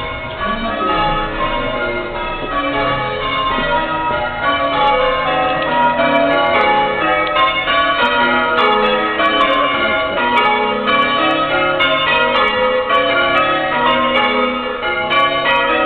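A ring of church tower bells being change-rung, the bells striking one after another in shifting order in a dense, continuous peal that grows louder about five seconds in.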